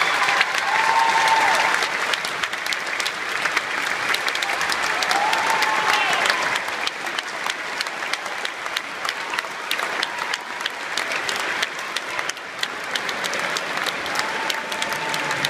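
Large crowd applauding steadily: a dense, continuous clatter of many hands clapping.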